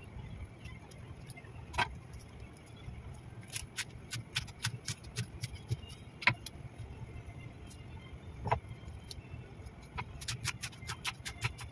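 Crisp snapping and crackling of fresh Chinese lettuce leaves being torn apart by hand, a run of small irregular crackles with a few louder sharp knocks. A low steady hum runs underneath.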